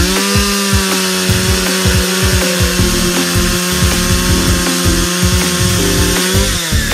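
Toy chainsaw switched on: a steady electric buzz that rises in pitch as it starts, holds for about six seconds, then winds down near the end. Background music with a steady beat plays underneath.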